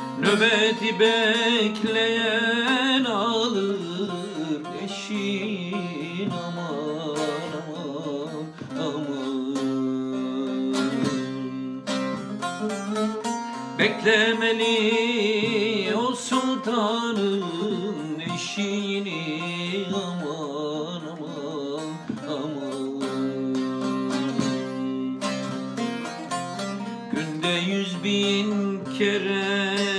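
Bağlama (long-necked Turkish saz) played as an instrumental passage of a Turkish folk song: steady strummed and plucked notes, with a flurry of fast repeated high notes that comes back near the start, about halfway through, and near the end.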